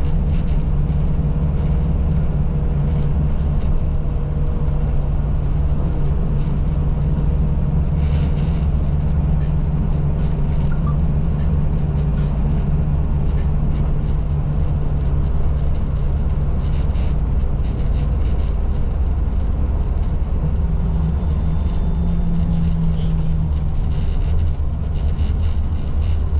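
Steady low drone of a bus's engine and road noise heard from inside the moving bus.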